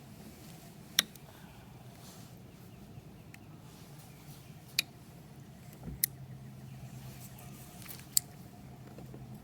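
Low steady hum of a distant motor vehicle, with four sharp clicks: about a second in, twice in the middle and once near the end.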